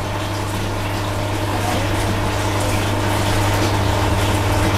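Aquarium filter pump running with a steady low hum, over the continuous rush of water circulating in the tank.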